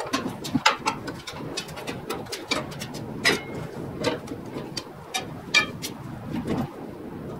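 Hand tools clinking and knocking against metal in a van's engine bay: a run of sharp clicks, with louder clanks about a second in, around three seconds in and past five seconds in. A low cooing carries on in the background.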